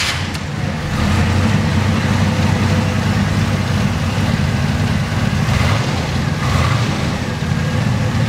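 1966 Chevrolet Impala's 427 Turbo-Jet big-block V8 (390 hp) idling just after being started. Its low rumble swells about a second in, then holds steady.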